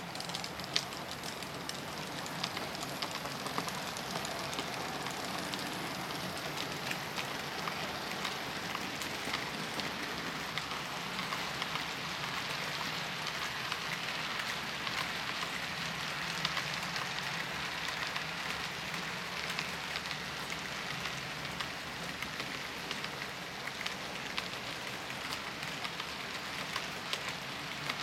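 HO-scale model freight train running over the layout track, its wagon wheels giving a steady rattle of many small clicks over the rails and joints.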